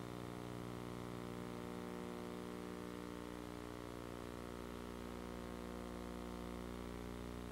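Steady low electrical hum with a buzzy edge that does not change, and nothing else heard over it.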